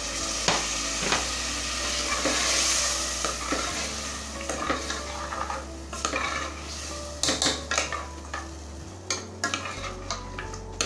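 Wooden spoon stirring thick mutton curry masala in a steel pressure cooker. The masala sizzles for the first few seconds, then the spoon knocks and scrapes against the pot in quick irregular clicks.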